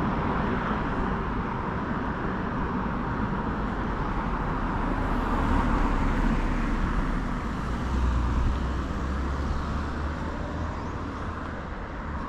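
Steady road traffic noise of vehicles passing on a town street, with a low rumble that swells briefly about eight seconds in.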